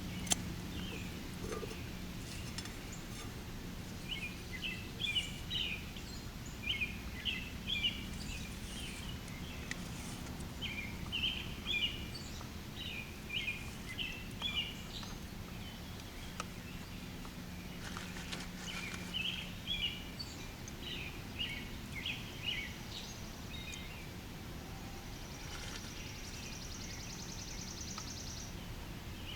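Birds chirping outdoors: short chirps in quick clusters, repeated every second or so, over a faint steady low hum. A thin high buzzing trill joins in for a few seconds near the end.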